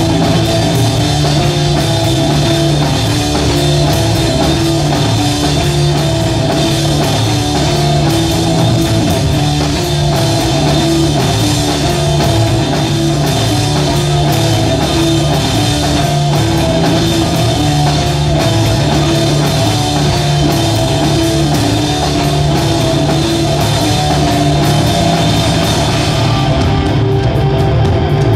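Live rock band playing an instrumental passage on electric guitar, bass guitar and drum kit: a low riff repeats over steady drumming.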